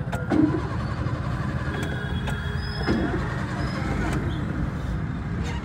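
Busy street traffic: motor vehicle engines running in a low continuous rumble, with voices of people nearby and a few short sharp clicks, the loudest about half a second in.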